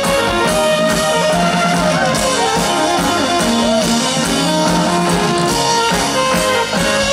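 Live indie-pop band playing with a steady beat on drum kit, bass guitar, keyboards and tambourine.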